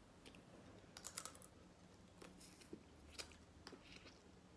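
Faint, scattered clicks and crackles of a boiled crawfish's shell being peeled by hand and eaten.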